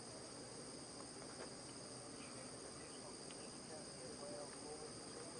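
Crickets chirping in a faint, steady high-pitched chorus.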